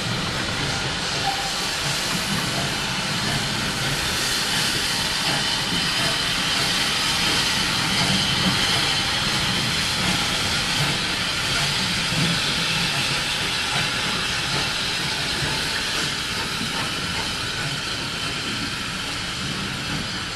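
Steam locomotive letting off steam in a steady, continuous hiss.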